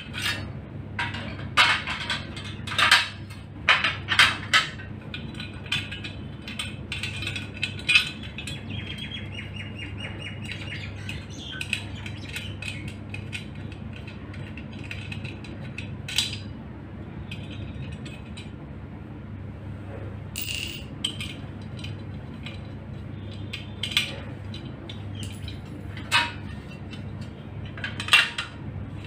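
Painted steel microwave wall-mount brackets being handled and adjusted: scattered sharp clicks and clinks as the metal arms are folded, slid and knocked together, thickest in the first several seconds, with a few single louder knocks later.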